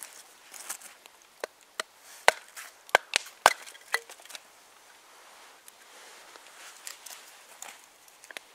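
Knife cutting into a wooden spoon blank as it is carved: irregular sharp cuts, a quick cluster in the first half, then a few fainter ones.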